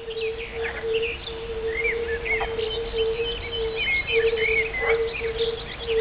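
Chorus of European fire-bellied toads: a continuous, slightly pulsing low hooting note at one pitch. Above it, songbirds chirp and warble in short rising-and-falling phrases.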